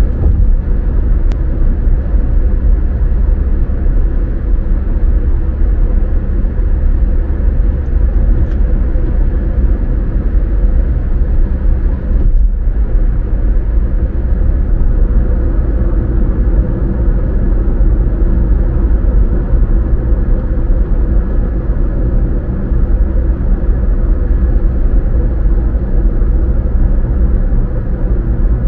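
Car being driven at a steady speed: a continuous low engine and road rumble.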